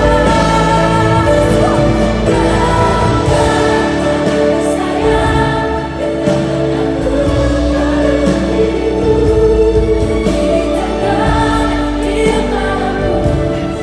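Live concert music: a ballad sung by a female singer with orchestral accompaniment, with sustained notes and a full, choir-like sound of voices.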